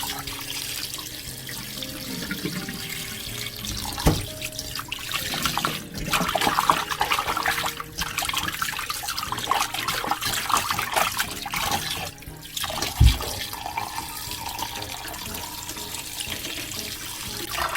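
Tap water running into a kitchen sink while raw chicken pieces are rubbed and rinsed under it, splashing unevenly. Two knocks, the louder one near the end.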